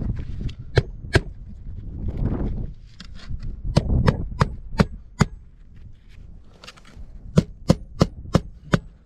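A hammer driving roofing nails through asphalt shingles. There are two blows, then two quick runs of about five sharp strikes each, about three a second, with a low rumble under the first half.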